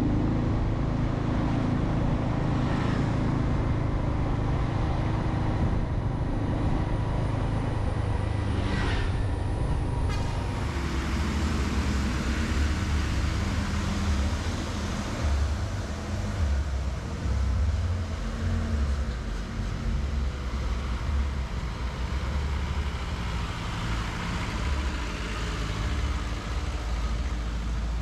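A motor vehicle's engine running steadily with a heavy low rumble, as on a road journey.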